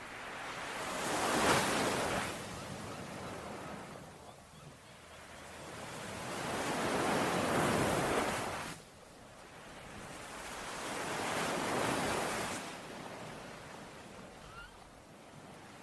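Ocean surf: waves breaking and washing ashore in three slow swells about five seconds apart, each building up and then falling away.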